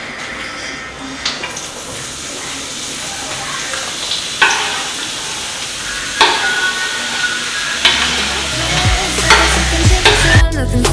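Diced onion, peppers and tomatoes sizzling in a hot frying pan as they are scraped off a wooden chopping board, with about five sharp knocks and scrapes of the knife on the board. Background music with a beat comes in near the end.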